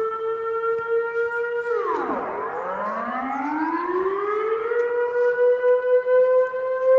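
Dutch air raid siren wailing. Its held tone drops sharply about two seconds in, then climbs slowly back up and holds again, starting another fall near the end.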